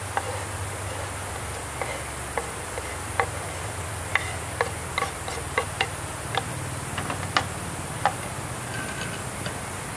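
Oil in a small cast iron skillet on a SOTO gas canister stove, with chopped garlic frying in it: irregular sharp pops and crackles, thickest in the middle, over the steady hiss and low hum of the burner.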